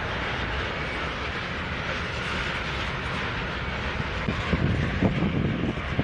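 Freight train of covered hopper cars rolling past: a steady rumble and hiss of wheels on rail, with a few irregular low thumps in the last two seconds.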